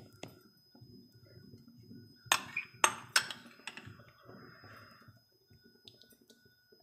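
A spoon clicking and scraping against a frying pan while spreading sauce over a pizza base, with a few sharp clicks a little over two seconds in and softer scraping after.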